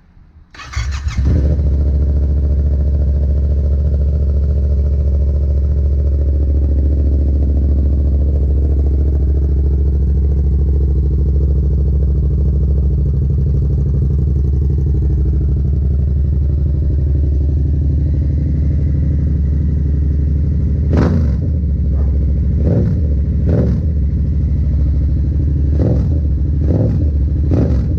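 Yamaha MT-07's 689 cc parallel-twin engine starting about a second in, then idling steadily through a newly fitted Black Widow carbon aftermarket exhaust. Several short sharp sounds stand out over the idle in the last seven seconds.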